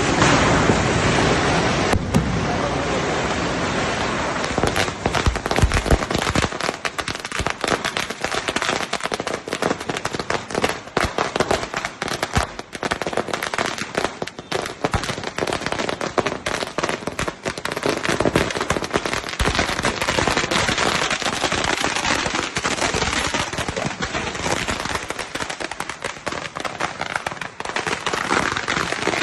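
Firecrackers going off in rapid, continuous crackling: a dense stream of sharp cracks and pops, heavier and more booming for the first several seconds.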